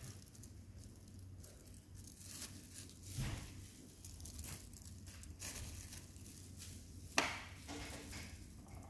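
Faint handling noises: soft rustles and light knocks as slices of bread are laid into a glass baking dish, with one sharp click about seven seconds in.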